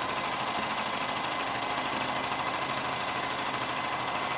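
Juki TL18-QVP Haruka sewing machine stitching fast and steadily during free-motion quilting, a rapid even chatter of the needle with a steady whine from the motor.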